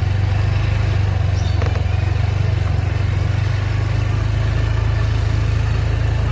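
Motor vehicle engine running with a steady low rumble, among road noise, and a brief faint clatter about a second and a half in; no horn sounds.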